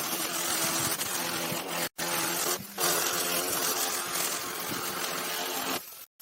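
A power tool running with a steady, noisy hum, cut off abruptly twice by edits.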